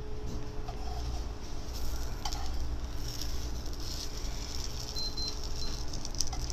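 Small corn cakes frying in oil on an electric griddle, a steady sizzling hiss, with a few light clicks.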